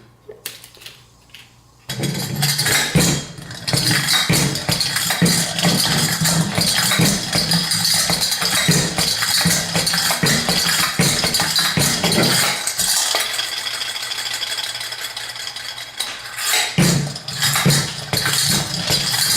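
A handheld toy clattering and rattling rapidly and continuously, starting about two seconds in, easing off for a few seconds past the middle, then picking up again near the end.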